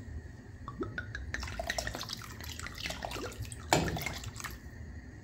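White wine poured from a glass bottle into a pot of water, splashing and glugging from the bottle's neck in short rising gurgles. One louder, sharper impact comes about four seconds in.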